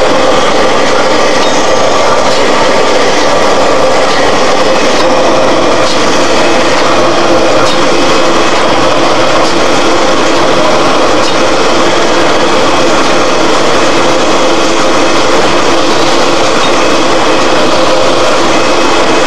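Automatic two-colour glass cup screen printing machine running: a loud, steady mechanical hum with steady tones in it and faint clicks now and then from its moving parts.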